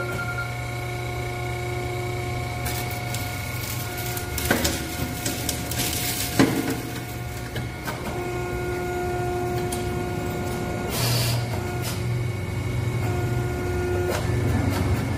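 Hydraulic power unit of an EMC 905 electric motor splitter running with a steady hum, its pump whining in spells as the press works. Sharp metal knocks and clanks come in the middle, from the motor casings being handled and broken on the die table.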